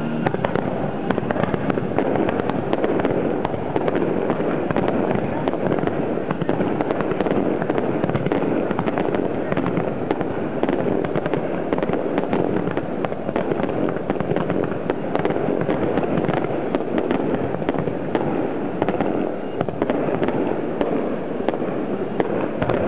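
Fireworks display heard from the firing site: a continuous barrage of aerial shells launching and bursting, the reports and crackle packed so close together that they run into one steady din.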